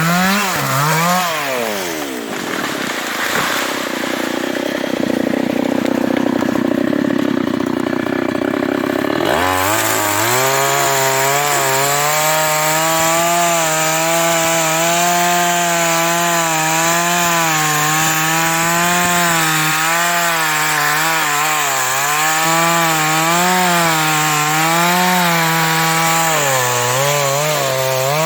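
A New West 588 two-stroke chainsaw cutting into a teak trunk. Its pitch drops early on, a rougher, noisier stretch follows, and from about nine seconds in it runs at high revs with a steady, slightly wavering whine.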